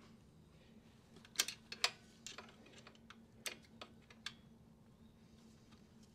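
Irregular light clicks and clacks of metal parts and hand tools at a motorcycle's front fork and upper triple clamp as a fork leg is worked loose, the loudest two about a second and a half in, over a faint steady hum.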